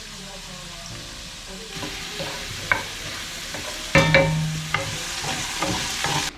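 Mushrooms sizzling as they sauté in a pan, stirred with a wooden spoon that knocks sharply against the pan about two and a half and four seconds in.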